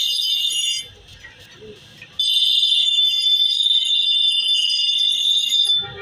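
Steel hatchet head ground against a spinning abrasive grinding wheel: a loud, high-pitched metal screech that stops for over a second near the start as the blade is lifted off, resumes, and stops again near the end.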